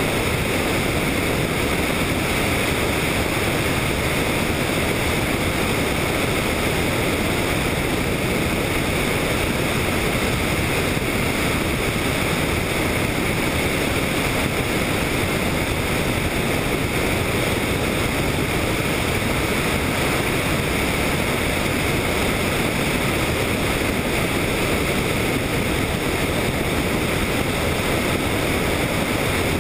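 Helicopter in flight, heard as a steady, unchanging rush of engine, rotor and air noise.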